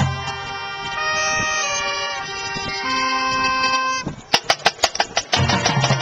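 Marching band playing: the winds and brass hold sustained chords that shift from note to note. About four seconds in they drop out and a quick run of sharp percussion clicks sounds alone, then the full band comes back in loud with heavy low brass near the end.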